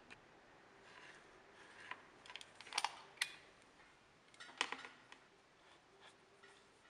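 A few light clicks and taps of small hard objects being handled: a pair of sharp clicks about three seconds in and another a little after four and a half seconds, with fainter ticks between.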